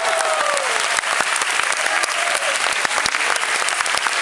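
Audience applauding, a dense, steady clapping, with a drawn-out call fading out in the first half second.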